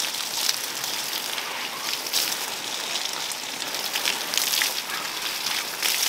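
Water splashing and pattering irregularly.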